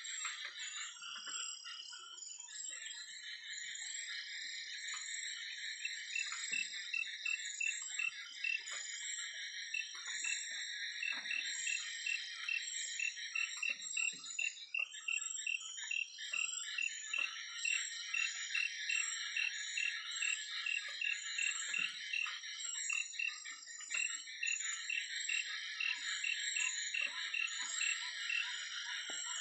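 Night chorus of frogs and insects calling together, with a steady high trill over it. Through the middle a repeated pulsing call, about three a second, stands out.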